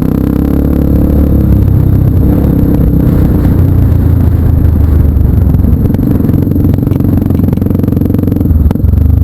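Off-road vehicle engine running loud and close, with a brief dip in level near the end.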